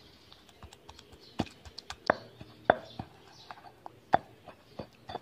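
Pestle pounding chili paste in a granite mortar: irregular sharp knocks, about five strong ones among lighter taps, as the shrimp paste and sugar are worked into the pounded chilies and garlic.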